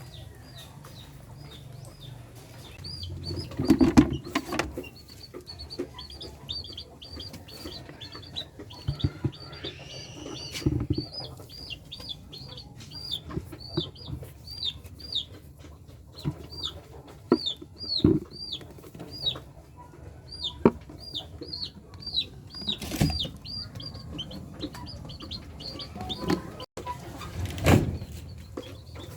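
Backyard chickens, with a long string of short, high, falling chirps a few times a second, broken by a few loud knocks and thumps.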